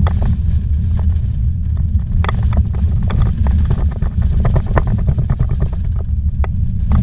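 Vehicle driving fast on a dirt road, heard from inside the cab: a loud, steady low rumble of tyres and running gear, with frequent sharp clicks and knocks as stones and bumps jolt the car.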